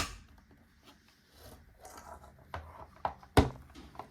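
Hands handling the plastic casing of a compressor nebulizer: a sharp click at the start, soft rubbing and a few light knocks, then a louder sharp click near the end.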